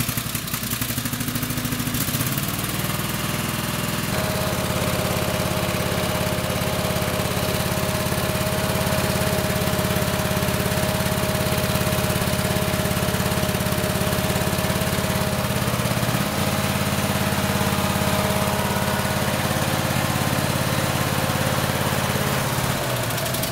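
Kohler Courage 26 hp twin-cylinder lawn tractor engine running on only one cylinder because one ignition coil is dead, sounding not quite normal. Its note changes about four seconds in, and it shuts off near the end.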